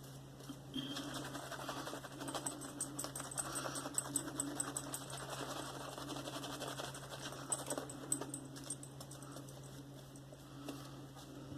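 Silvertip badger shaving brush working Mitchell's Wool Fat soap lather: a quiet, fast run of fine wet crackling clicks that thins out in the last few seconds.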